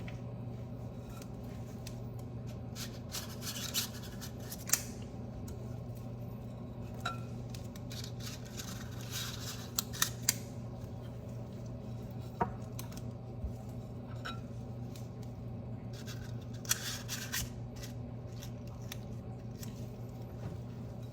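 Scattered small clicks, scrapes and rustles of hands working with kitchen tools, over a steady low hum.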